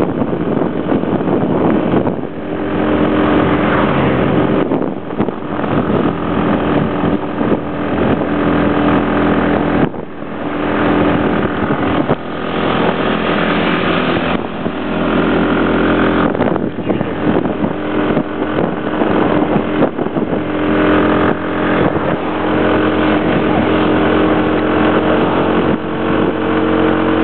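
Motorbike engine running at road speed with wind rushing over the microphone; the engine note drops back and picks up again several times.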